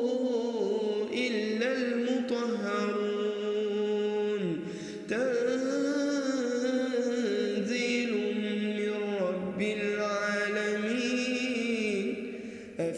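A man's voice reciting the Quran in a slow, melodic chant, with long drawn-out notes that bend up and down. There are brief breaks about four and a half seconds in and just before the end.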